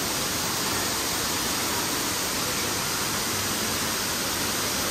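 A tall indoor waterfall pouring down a plant-covered wall: a steady, unbroken rush of falling water.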